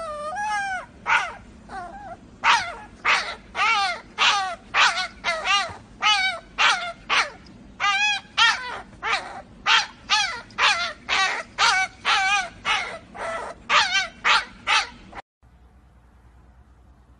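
Puppy crying in a long series of short, high-pitched yelps, about one and a half a second, each bending up and down in pitch; the cries stop abruptly near the end.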